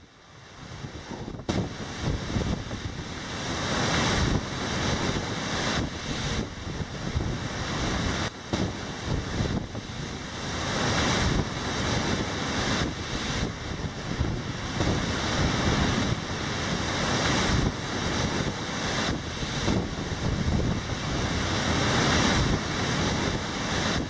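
Heavy storm surf crashing against a stone sea wall, a continuous roar that swells and eases as each wave breaks and the spray and backwash rush off. Wind buffets the microphone.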